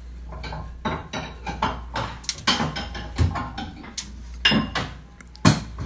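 Crockery and kitchen utensils clattering, a quick run of clinks and knocks as a small cup is fetched, the loudest knock near the end. A low steady hum runs underneath.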